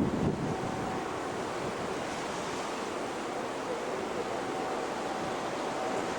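Heavy surf breaking and splashing against shoreline rocks: a steady rush of waves, with some wind buffeting the microphone.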